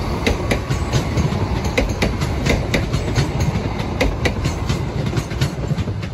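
Class 170 Turbostar diesel multiple unit 170201 running past and away, its wheels clicking over the rail joints above a steady low running noise.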